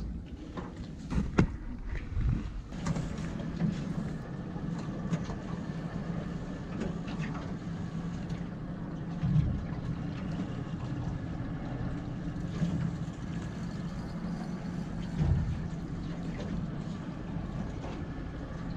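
Boat engine running steadily at low speed, a low even hum, with a few dull knocks about a second in, near the middle and about three-quarters of the way through.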